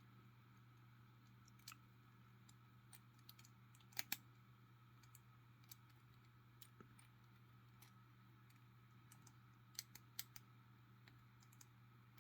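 Faint scattered clicks of a small three-digit luggage combination padlock's number wheels being turned, with a few sharper clicks about four seconds in and again near ten seconds, over a low steady hum.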